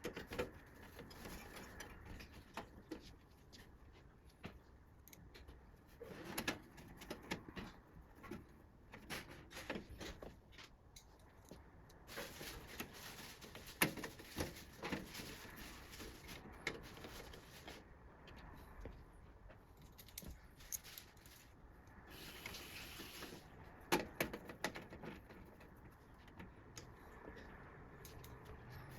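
Faint handling sounds of computer parts being fitted during a desktop PC build: scattered light clicks, taps and knocks, with a short hiss or rustle lasting about a second a little past two-thirds of the way through.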